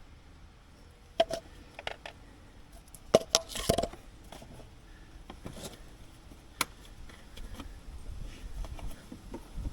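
Scattered clinks and knocks of hand tools and parts being handled during an oil and filter change, a few of them ringing briefly, with the loudest cluster about three to four seconds in.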